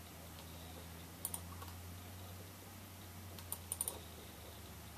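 Light clicks at a computer: a pair about a second in and a quick run of four near the end, over a low steady hum.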